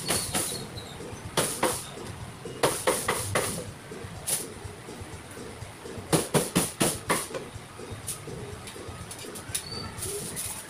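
Chopping with a knife on a cutting board, likely roast chicken being cut up: quick runs of sharp knocks, three to seven strokes at a time with pauses between, over a steady background hiss.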